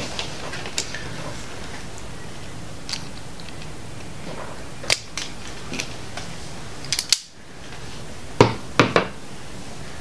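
Scattered small clicks and taps of a hand tool and wires being handled on a workbench, with a few louder sharp clicks near the end.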